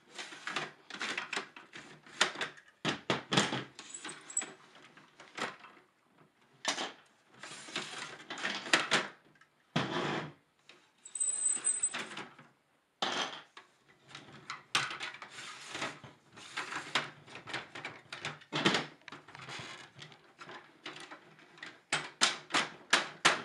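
Plastic spacers and metal-tipped beaks being slid off a Polyplanter Jr. 2.0 seed planter's drum and handled, giving irregular clicks, clacks and rattles of hard plastic and metal parts. Twice there is a brief high squeak.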